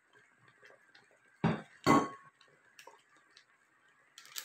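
Two short clattering knocks about half a second apart, from a metal mesh strainer and a plastic hotpot container being handled, with small clicks around them. A brief crinkle of a foil sauce packet being squeezed comes near the end.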